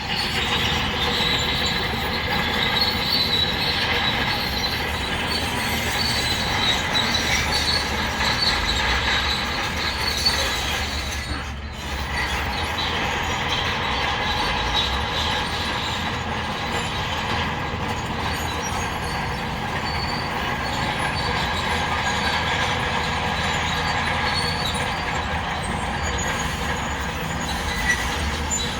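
Heavy diesel earthmoving machinery working steadily, with engines running under load and metal parts clattering. The sound dips briefly about twelve seconds in.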